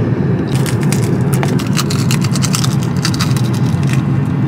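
Crunching and crackling of bites into crispy fried chicken, a quick run of sharp crunches starting about half a second in, over the steady low rumble of a car.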